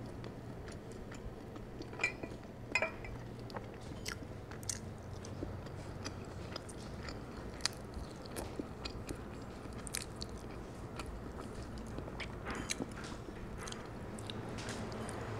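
Close-up mouth sounds of someone chewing rotisserie chicken meat and skin: soft, wet clicks and smacks scattered irregularly, with a few sharper ones about two to three seconds in and again near eight seconds.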